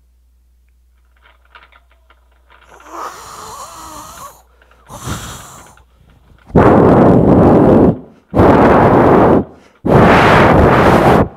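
A man imitating a howling storm wind: first a wavering vocal howl, then three long, loud blasts of breath blown into a microphone with short gaps between them, overloading it.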